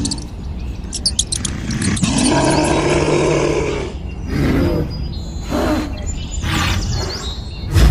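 Tiger roaring: one long roar a couple of seconds in, then several shorter roars.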